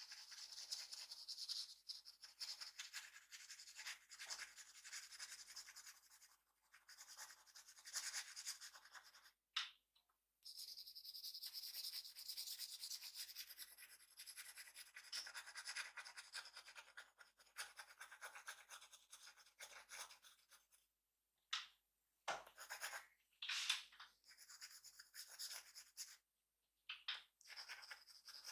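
Drawing strokes rubbing and scratching across paper, quiet, in long runs broken by short pauses, with a few sharper, quicker strokes near the end.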